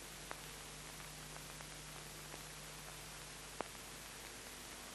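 Soundtrack background noise in a pause of speech: a steady hiss with a low mains-type hum under it, and a couple of faint clicks, the clearer one about three and a half seconds in.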